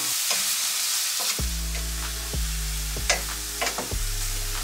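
Prawns sizzling as they fry in a non-stick pan, stirred with a wooden spatula. Background music with steady low bass notes comes in about a second and a half in, under the frying.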